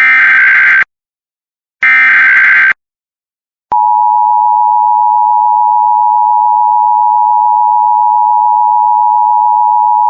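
Emergency Alert System tones. First come the last two bursts of the SAME digital data header, each just under a second long and about a second apart. After a short pause, about four seconds in, the steady two-tone EAS attention signal begins and holds.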